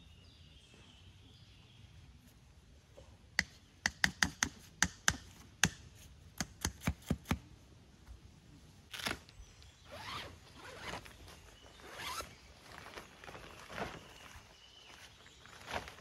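A quick, irregular run of sharp clicks, then a tent's zipper drawn in several rasping strokes.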